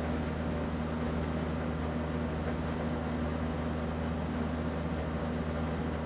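Casablanca Delta II five-blade ceiling fan running at speed: a steady motor hum over an even rush of air noise.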